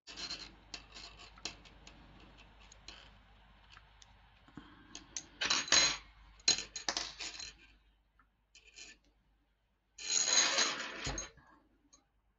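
Metal double-pointed knitting needles clicking and clinking against each other as a yarn needle picks stitches off them. The clicks come in bunches, with a busier run around the middle and a denser, louder rattle of about a second near the end.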